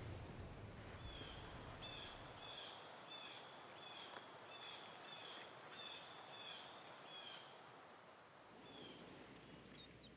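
A small bird chirping repeatedly, about a dozen short calls roughly one and a half a second that stop about seven seconds in, with one more call near the end. Under them is a faint steady hiss of outdoor ambience.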